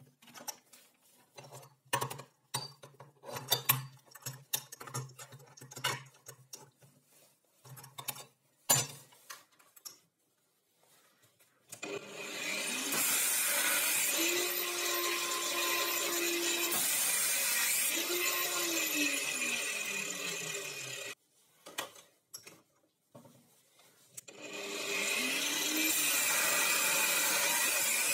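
Clicks and knocks of small metal parts being fitted on a metal plate. Then a stand-mounted angle grinder starts up and cuts metal, its motor pitch sagging as the disc bites. It stops suddenly and a few seconds later runs and cuts again.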